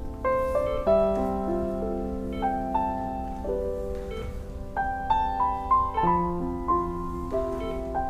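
Slow background piano music: a melody of held notes over sustained lower notes.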